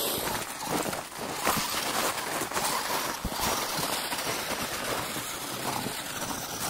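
Footsteps crunching through snow, with rustling and wind noise on the microphone as the camera is carried along; no steady motor whine stands out.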